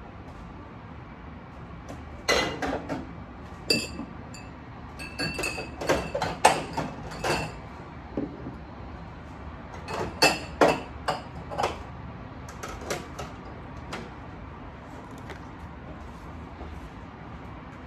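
Dishes and cutlery clinking and clattering: a run of sharp clinks, some with a brief ringing tone like glass or china, in two bursts, one about two seconds in and one about ten seconds in, then a few faint taps.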